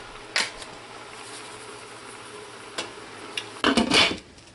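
Glass pot lid set onto a cooking pot of cabbage, clattering briefly against the rim near the end. A single light knock comes about half a second in, over a faint steady hum.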